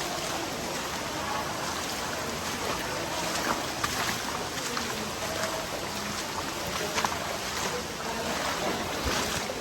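Steady rush of water from a waterfall, with a few small knocks over it.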